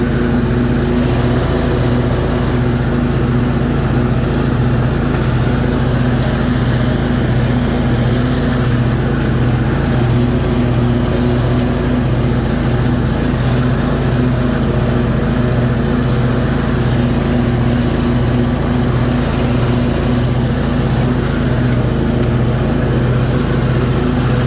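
Cub Cadet Z-Force zero-turn mower's Kohler 22-horsepower engine running steadily at speed, with the deck blades spinning as it mows grass.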